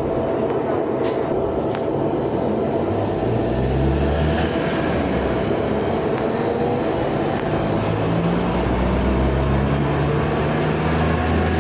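Cabin noise of a BKM-32100D trolleybus under way: steady running and road noise, with two sharp clicks about a second in and a whine rising in pitch near the end as it gathers speed.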